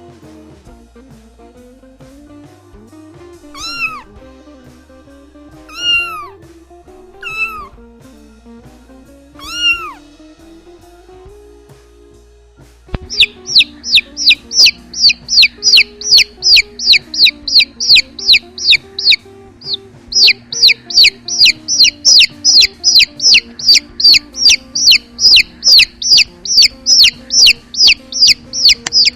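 A domestic cat meows four separate times over soft background music. About halfway through, a long run of loud, high-pitched, downward-sliding peeps starts, about two and a half a second, with a short break partway.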